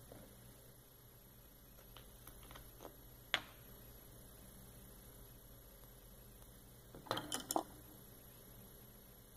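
Faint steady electrical hum with a few small clicks and taps: one sharp click about a third of the way in and a quick cluster of taps near three-quarters of the way.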